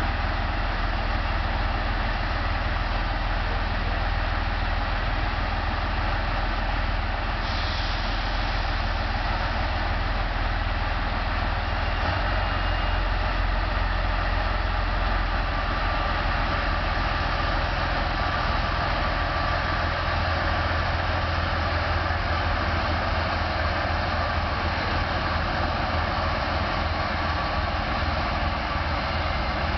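Lithuanian Railways DR1A diesel multiple unit with its diesel engine running steadily while it stands at the platform: a constant low rumble.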